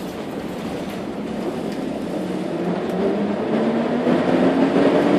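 Cabin noise of a Jelcz PR110 CNG city bus under way, its gas-fuelled engine and road noise steady. In the second half the engine note rises and grows louder as the bus accelerates.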